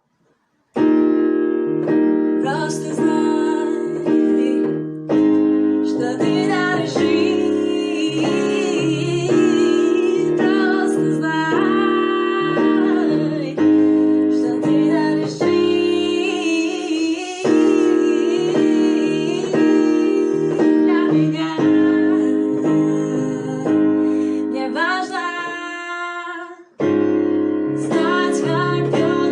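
Music: keyboard chords, like an electric piano, over a bass line, with a female voice singing. It begins about a second in after a short silence, and breaks off briefly near the end before going on.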